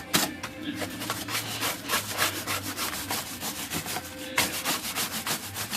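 A stiff brush scrubbing rapidly back and forth over typewriter key tops, a continuous fast scratchy rasp with a short pause partway through. The brush is wet with soap to loosen the dirt on the keys.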